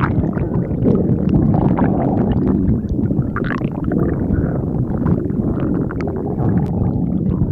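Human stomach growling: a continuous low rumble with wavering gurgles and squeaks over it.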